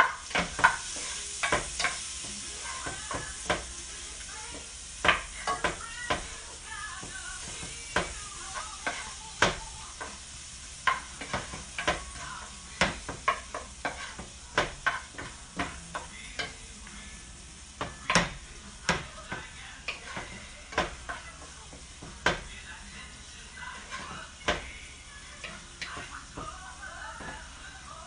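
Chopped garlic and onion sizzling in oil and butter in a frying pan, with a steady hiss. A spoon stirring them clinks and scrapes against the pan in sharp, irregular taps about one or two a second.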